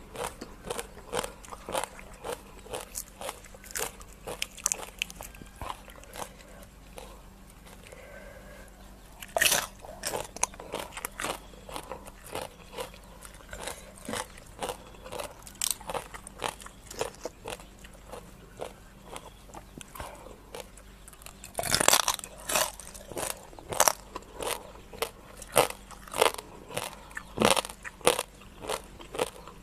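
Close-miked chewing and crunching of crisp food: raw rice-field crab papaya salad eaten with fresh raw vegetables, a steady run of crisp bites and chews. The crunching is loudest and densest about ten seconds in and again a little over twenty seconds in.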